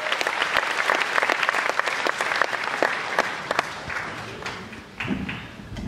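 Theatre audience applauding, the clapping dense at first and then thinning out and fading over the last couple of seconds.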